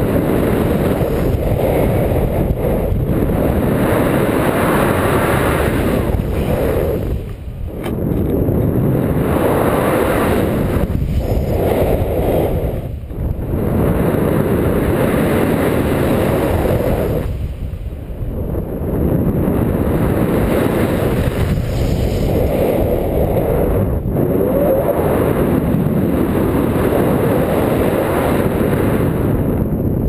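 Wind rushing over an action camera's microphone during a tandem paraglider flight: a loud, steady roar of wind noise that eases briefly three times, about a quarter of the way in, near the middle and again just past it.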